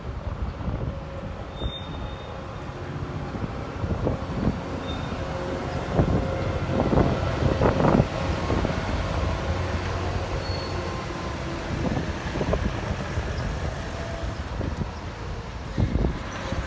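An SJ X2000 high-speed trainset rolling along the track, a steady rumble with irregular knocks of the wheels, loudest about halfway through.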